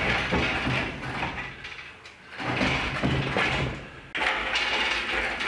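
Shop engine hoist being rolled on its casters across a concrete floor, with metal rattling and clanking as the engine and transmission hanging from it are pulled clear of the truck's frame, in three spells of movement.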